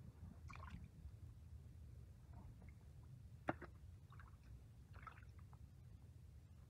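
Faint small splashes and squelches of hands and catfish in shallow muddy water, with one sharp slap about three and a half seconds in, over a steady low rumble.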